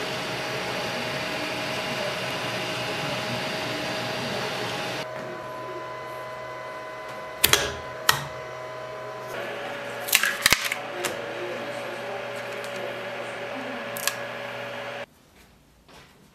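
FDM 3D printer at work, its fans running steadily under rising and falling stepper-motor tones as the print head moves. After about five seconds the motors fall silent over a steady fan hum, and several sharp plastic clacks come as a printed part is handled and pulled off the print bed; near the end the machine noise cuts off suddenly.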